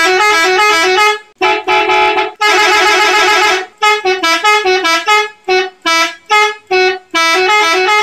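Toy bicycle's electronic speaker playing a telolet bus-horn melody: a buzzy horn tone switching quickly back and forth between two notes. It runs in longer stretches at first, then breaks into a string of short blasts over the second half.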